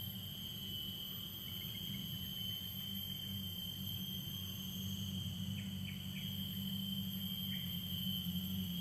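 Steady high-pitched drone of insects, crickets or similar, holding on several unchanging tones, over a low steady hum, with a few faint short chirps in the middle.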